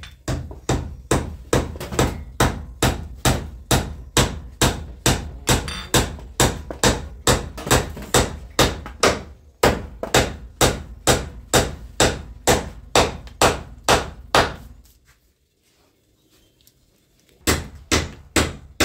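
Stiff cake batter of cornmeal and wheat flour being stirred hard by hand, the spoon knocking against the mixing bowl in a steady rhythm of about two to three knocks a second. The knocking stops for about two seconds near the end, then starts again.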